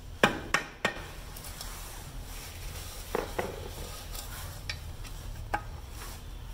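Hammer striking a chisel on an old AE86 strut and hub assembly, driving parts apart: three sharp metallic strikes in quick succession, then a pair of strikes about three seconds in and one more near the end.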